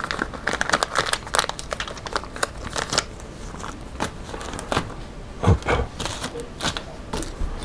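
Clear plastic parts bag crinkling, with small metal washers and carbon parts clicking against each other as they are handled, busiest in the first few seconds; a couple of soft knocks come near the middle.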